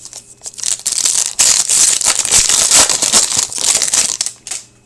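Card packaging wrapper crinkling and rustling loudly in the hands for about four seconds as hockey cards are handled.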